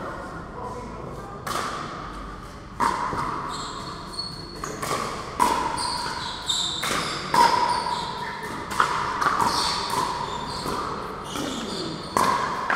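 Pickleball rally: paddles striking the hard plastic ball in a series of sharp pops, irregularly spaced about a second apart, each ringing on in a large, echoing hall.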